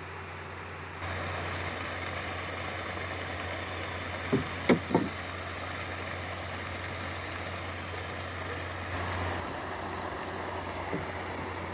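Three-phase electric paddlewheel aerators running on a pond, their paddles churning and splashing the water steadily over a low motor hum. Three brief sharp sounds come about four to five seconds in.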